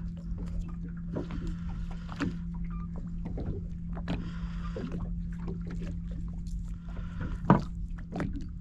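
Boat engine idling with a steady low hum, under wind and water hiss and small clicks from the hands working the hook and line. There is a brief louder sound about seven and a half seconds in.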